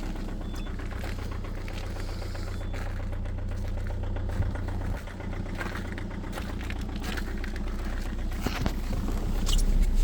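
PSA 2.0 HDi diesel engine idling after a cold start at about −5 °C, with a strong, rapid diesel knock. A few sharp clicks near the end.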